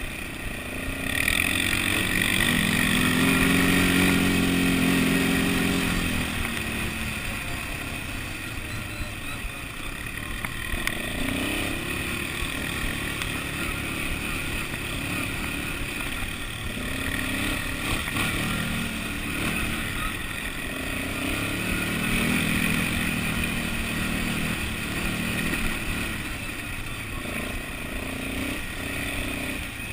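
ATV (quad bike) engine running while riding, picked up close by a camera mounted on the machine, its pitch climbing and easing off several times as the throttle is opened and closed.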